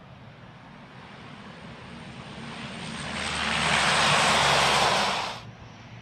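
C-130 Hercules four-engine turboprop transport growing steadily louder to a peak as it passes, then cutting off suddenly near the end.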